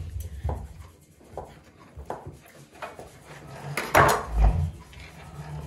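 Kitchen knife cutting hard queso costeño into cubes on a plastic cutting board: a string of short knocks as the blade meets the board, with the loudest knock about four seconds in.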